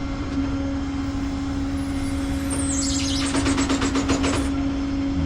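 Vehicle engine running with a steady hum. About two and a half seconds in, a high chirp slides downward and turns into a quick run of chirps lasting about two seconds.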